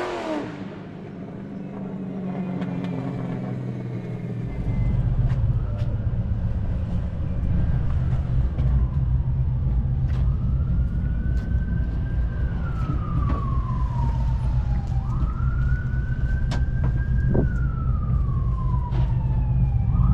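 A BMW M57 twin-turbo diesel running steadily, louder from about four seconds in. Over it an ambulance siren wails: from about eight seconds in, each cycle sweeps up to a high pitch, holds, then slowly falls, about every five seconds.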